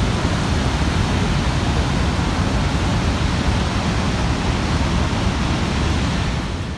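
Steady roar of the American Falls at Niagara: water plunging over the falls and crashing onto the rocks below, heard as an even, unbroken rush that drops off right at the end.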